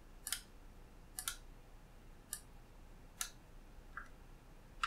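Computer mouse button clicks: a handful of short, sharp clicks, roughly one a second.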